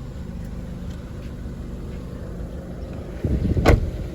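Chevrolet Orlando 1.8-litre engine idling with a steady low hum. Near the end there is a short scuffle and one sharp knock.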